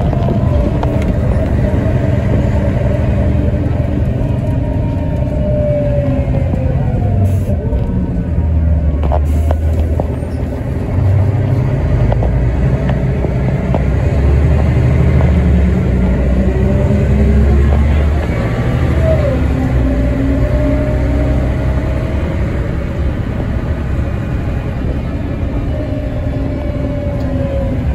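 A 1990s city bus on the move, heard from inside the passenger cabin: a steady low engine and road rumble with a faint whine that rises and falls in pitch.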